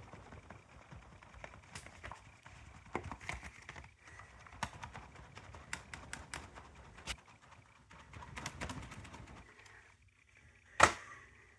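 Irregular light clicks and knocks from handling the detector, with a short stretch of faint hiss, then one sharp loud click near the end.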